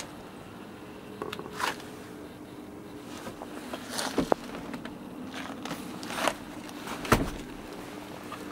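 Rustling, clicks and knocks from a handheld camera being moved around a car's cabin, with a sharp thump about seven seconds in, over a steady low hum.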